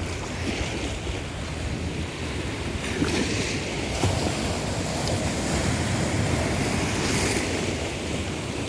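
Sea waves breaking and washing ashore, a steady surf rush that swells a little about three seconds in and again near the end, with a low rumble of wind on the microphone.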